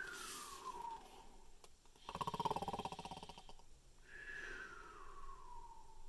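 A man's voice imitating a snoring bear, cartoon style: a falling whistle on the out-breath, a rattling snore on the in-breath about two seconds in, then another falling whistle.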